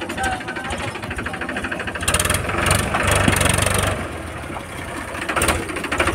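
Powertrac tractor's diesel engine running with a fast, even knocking beat, getting louder for a couple of seconds near the middle.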